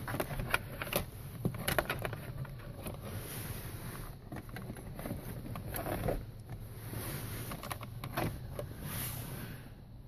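Scattered light clicks and rustling as a power cord is pushed and folded up under a vehicle's plastic dashboard trim by hand.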